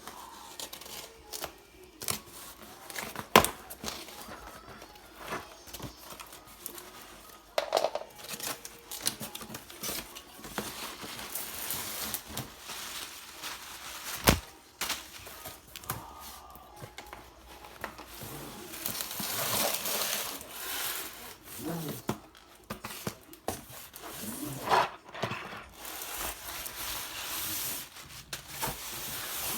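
A parcel being opened by hand: packaging tearing and crinkling in spells, with scattered sharp knocks and taps, two of them louder than the rest.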